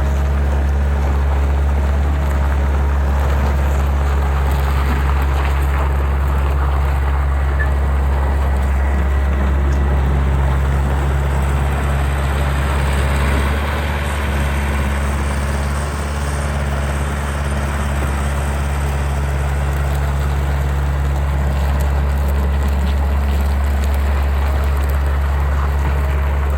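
Takeuchi TL126 track skid steer's diesel engine running steadily at an even speed, with a slight drop in level about halfway through.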